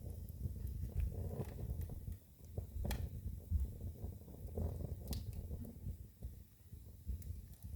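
Wood fire burning in a fireplace: a low steady rumble of flames with irregular crackles and two sharper pops, about three and five seconds in.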